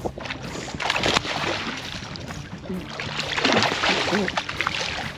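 Water splashing as a hooked redfish thrashes at the surface right beside the boat, in a few bouts, the loudest about three and a half seconds in.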